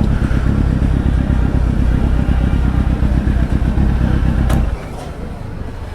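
Kawasaki Z800's inline-four engine running as the bike is ridden, a dense low rumble heard from on the bike. It drops to a much quieter level near the end.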